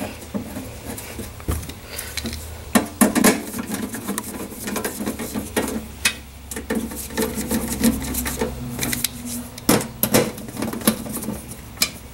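Scattered clicks and light metallic clatter from hands handling the screws and sheet-metal case of a plasma cutter.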